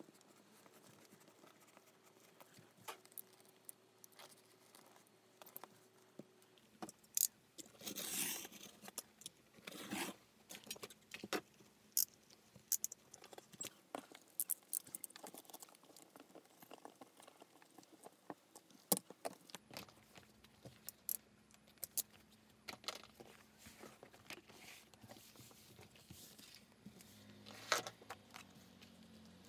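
Quiet hand-work sounds on crocodile leather: irregular clicks, scratches and short scrapes of a marking tool tracing around a paper pattern. Steel pattern weights and the paper are moved about, with longer scrapes about eight and ten seconds in and a louder clatter near the end.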